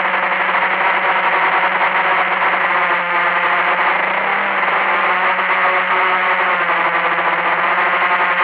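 Blade 350QX quadcopter's four electric motors and propellers whirring steadily in flight, heard from a camera mounted on the craft. The pitch shifts slightly a few seconds in as the throttle changes.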